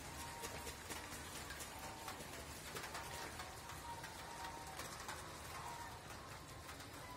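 Domestic geese giving short, soft calls over and over, with scattered light splashing of water as they bathe in rain puddles.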